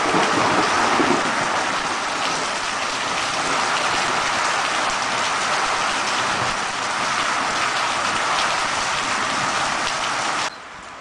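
Heavy rain pouring steadily, with the tail of a thunder rumble fading in the first second; the rain cuts off suddenly about ten seconds in.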